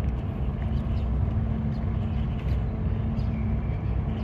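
Steady low rumble of a Sado Kisen ferry under way, its engines and hull giving a constant drone with a steady hum above it.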